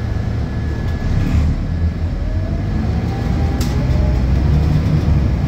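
Scania K230UB city bus heard from inside the cabin while under way: its rear-mounted nine-litre five-cylinder diesel runs with a steady low drone. A faint whine rises in pitch around the middle, and there is a single sharp click a little past halfway.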